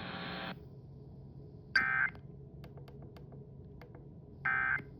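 Emergency Alert System end-of-message data bursts from an FM radio: two short, buzzy digital tone bursts about three seconds apart. They signal that the severe thunderstorm warning broadcast has ended. The broadcast hiss cuts off about half a second in.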